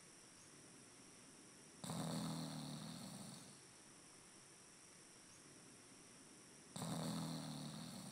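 Snoring: two long snores about five seconds apart, each starting suddenly and fading over about a second and a half, over a faint steady high buzz.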